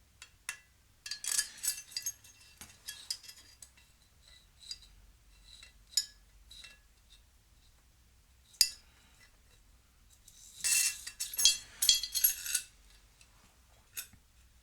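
Small metal hardware (nuts, washers and a spacer) clinking and rattling against each other and a threaded rod as they are handled and fitted on, in several short clusters of sharp, lightly ringing clinks.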